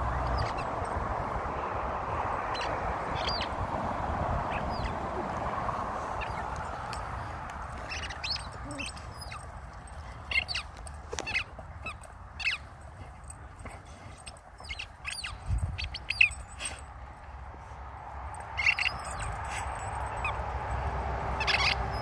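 A dog chewing a rubber squeaker ball, squeezing out irregular squeaks and drawn-out wheezes from the squeaker. Sharp clicks of teeth on the toy come in the middle part.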